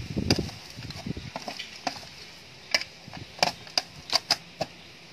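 A metal spoon clicking and scraping on a stainless steel tray as chopped lemongrass, garlic and lemon leaves are mixed with salt and seasoning: a run of sharp clicks, closer together in the second half.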